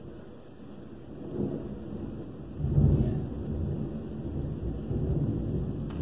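Thunder rumbling. A low rumble builds about a second and a half in, swells to its loudest near the middle, then keeps rumbling.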